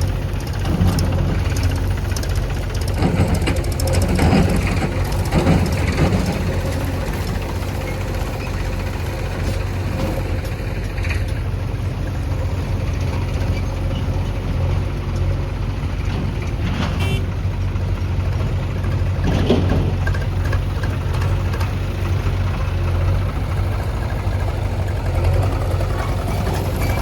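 Heavy diesel engine of construction machinery running steadily with a deep drone, with a few short bursts of clatter over it about 3 to 6 seconds in and again later.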